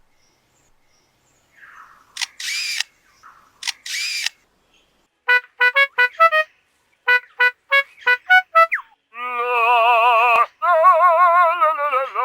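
A lyrebird mimicking human-made sounds: two short shutter-like rasps, then a run of clipped electronic-sounding beeps, then a loud warbling, wavering alarm-like call near the end.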